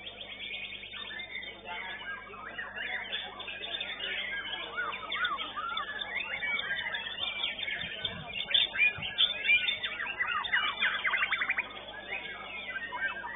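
White-rumped shama (murai batu) singing a varied stream of loud whistled phrases and quick sweeping notes, with a fast trill of rapidly repeated notes near the end.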